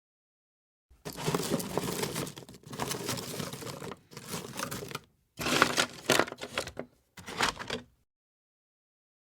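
Rustling, crumpling sound effect in five bursts of about a second each, starting about a second in and stopping near the end.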